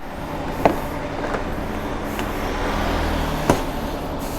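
A motor vehicle engine running steadily with a low hum, with two sharp clicks, one early and one about three and a half seconds in.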